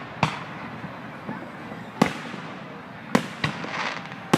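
Fireworks display: aerial shells bursting with about five sharp booms at uneven intervals, two of them close together a little past three seconds in.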